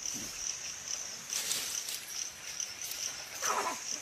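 Steady high-pitched drone of insects, with a short rustle a little over a second in and a brief primate call, the loudest sound, near the end, from young chimpanzees and baboons at play.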